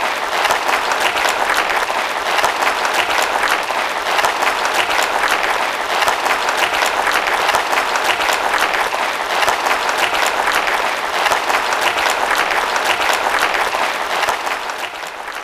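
A large audience applauding steadily, a dense patter of many hands clapping, tapering off near the end.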